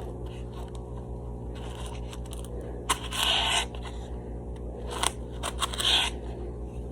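A few short scraping and rustling noises, the loudest a little after three seconds in, over a steady low electrical hum.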